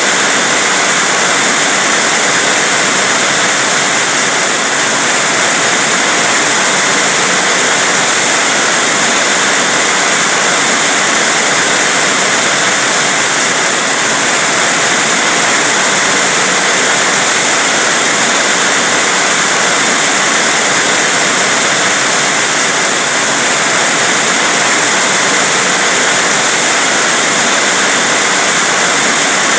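Heavy rain falling steadily, a dense unbroken hiss with no pauses.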